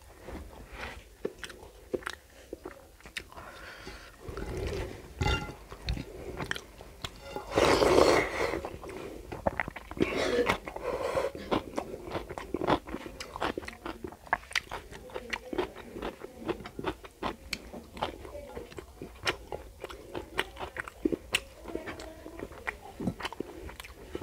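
Close-miked eating sounds: chewing with many wet mouth clicks as a man eats rice and curry by hand, and his fingers mixing rice in the curry on the plate. There is a louder stretch about eight seconds in and another a couple of seconds later.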